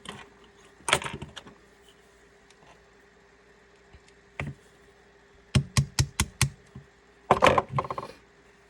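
Light tapping on the KWA Masada's mechanism block from below, to knock it loose from the receiver. A few scattered clicks, then a quick run of about six sharp taps, then a louder cluster of knocks near the end.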